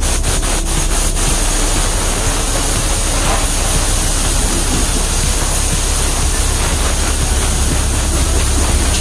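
Compressed air hissing in a steady blast from an air blow gun, blowing dust off a plywood floor.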